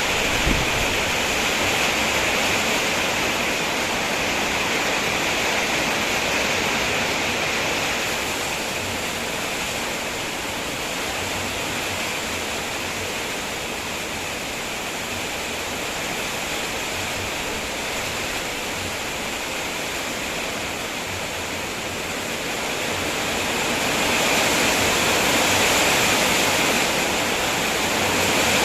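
Heavy rain pouring down steadily, easing slightly in the middle and growing louder again near the end.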